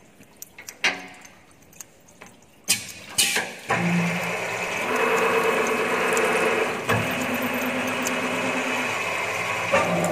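Multi-spindle tapping machine: scattered clicks and a few sharp knocks as a part is loaded and clamped. About four seconds in, the spindle drive starts and runs steadily with a whine of several steady tones, with a click and a brief change about seven seconds in.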